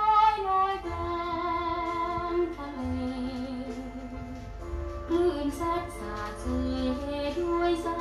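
A Thai woman singing a slow ballad with band accompaniment, played from a vinyl LP; her long held notes waver with vibrato.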